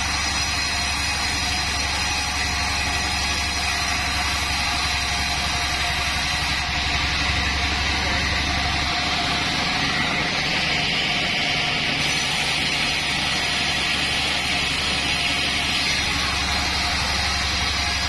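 A 36-inch band sawmill running steadily, a continuous even mechanical hum and hiss from its motor and band blade.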